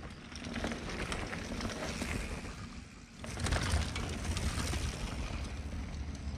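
Mountain bikes rolling past on a dirt singletrack, tyres crunching over dirt and pine needles with rapid clicking. A second, louder pass with a low rumble starts a little after three seconds in.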